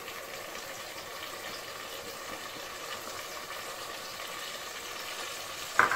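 Onions and tomatoes frying in oil in a pot on a gas stove: a steady, soft sizzle. A sharp clack comes just before the end.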